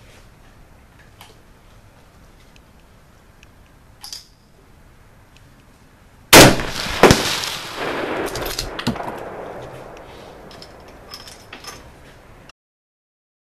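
A single shot from a Ruger American .308 Winchester bolt-action rifle: one loud, sharp report about six seconds in, a second sharp crack under a second later, then a rumbling echo that dies away over a few seconds.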